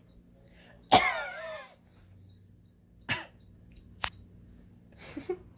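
A person coughing: a loud cough about a second in with a voiced, wavering tail, then shorter single coughs about three and five seconds in. A brief sharp click falls in between, near four seconds.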